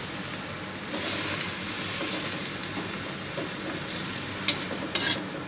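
Chicken and carrot strips sizzling in a wok with a little water, stirred with a metal wok spatula: a steady hiss, with a couple of sharp clicks of the spatula against the wok near the end.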